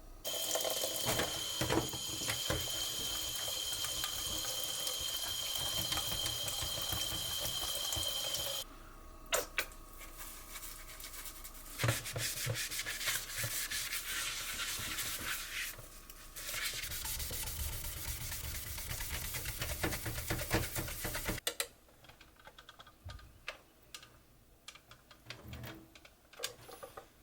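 Running water, as from a tap or a pour, with a few knocks; it stops about twenty seconds in, leaving scattered light clicks.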